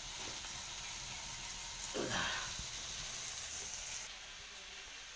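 Steady hiss of a biogas stove burner turned up to full, with vegetables cooking in the kadai above it. The hiss drops away about four seconds in.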